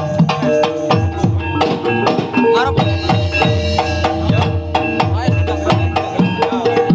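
Banyumas ebeg gamelan music: drum strokes that fall in pitch after each hit, over ringing metallophone notes, in a steady, busy rhythm.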